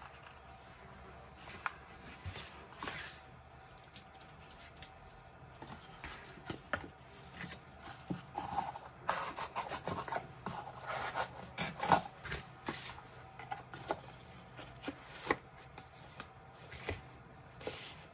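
Cardboard phone box being handled by hands: rubbing and scraping with scattered light knocks. The handling is busiest in the middle, with one sharper knock about twelve seconds in.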